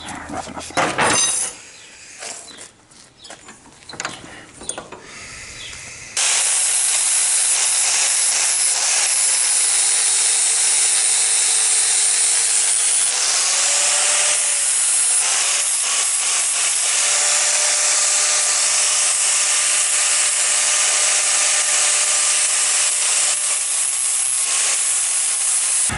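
Angle grinder grinding a freshly welded steel bar: a few knocks and clatter of handling, then about six seconds in the grinder starts abruptly and runs loud and steady. Its whine dips in pitch for a few seconds near the middle and recovers.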